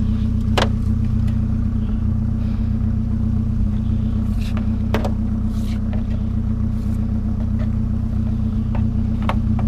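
A vehicle engine idling with a steady low hum, broken by a few short knocks and clicks about half a second in, twice around the middle, and once near the end.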